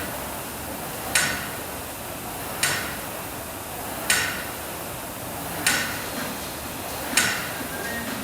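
Gym equipment knocking in a steady rhythm during an exercise set, a sharp clack about every second and a half.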